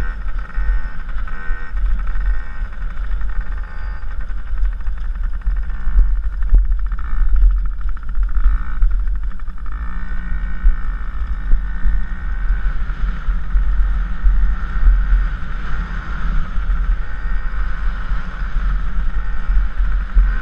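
Dirt bike engine running and revving up and down while ridden, under strong low wind rumble on the helmet-mounted camera's microphone.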